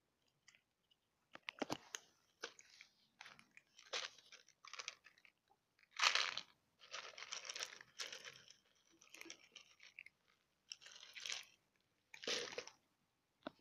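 Cats crunching dry kibble: irregular crisp chewing, with a louder burst about six seconds in.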